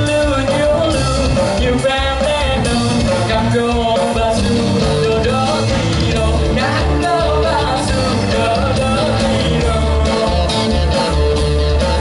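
A live band playing a rock song with a lead singer, sung melody over guitar, bass and drums.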